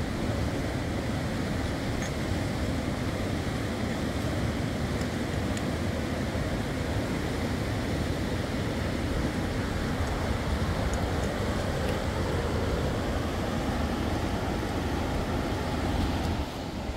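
Fast whitewater river rushing over rocks: a steady, even wash of water noise that dips slightly just before the end.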